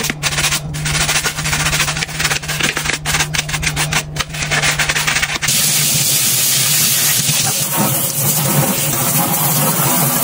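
Bristle dish brush scrubbing a wet, soapy stainless steel sink around the drain in quick, rough strokes. About five and a half seconds in the scrubbing stops and tap water runs steadily into the sink, rinsing it.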